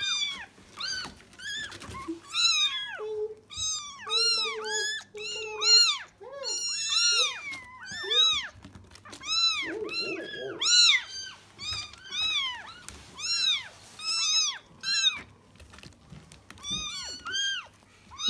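A cat mewing over and over: high calls, each rising and then falling in pitch, one or two a second.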